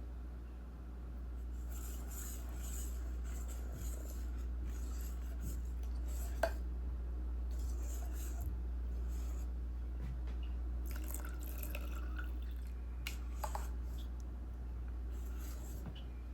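Soft, intermittent kitchen handling sounds over a steady low hum, with scraping or swishing and a few light clicks, the sharpest about six seconds in.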